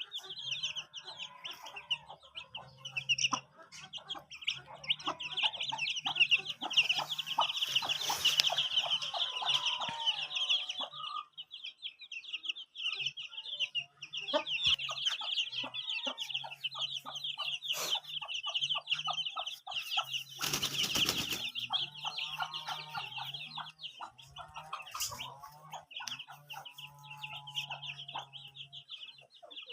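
A flock of chickens clucking over a constant chatter of high chirps, with wings flapping twice in brief noisy flurries.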